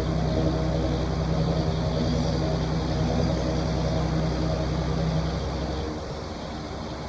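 John Deere tractor's diesel engine running steadily in field work. About six seconds in, its low running note fades and the sound gets quieter.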